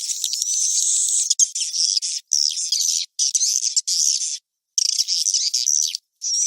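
Recorded edible-nest swiftlet calls: dense, high chittering with rising whistled chirps, a 'suara inap' roosting lure played in swiftlet houses to draw birds to stay, with nothing left below the high chirps. It breaks off in short silent gaps, the longest about four and a half seconds in.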